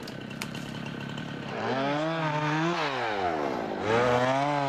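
Gas chainsaw engine revving: it picks up to high speed about a second and a half in, drops back briefly in the middle, then revs up again and holds.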